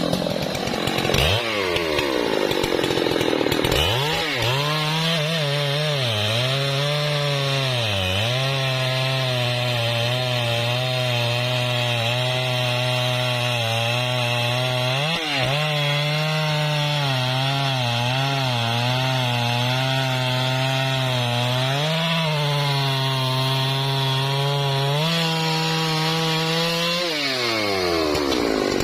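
Husqvarna 3120 XP, a large two-stroke chainsaw, revving up and then cutting through trembesi (rain tree) wood under load. The engine note dips several times as the chain bogs in the cut, then rises briefly and falls away near the end as the throttle is released.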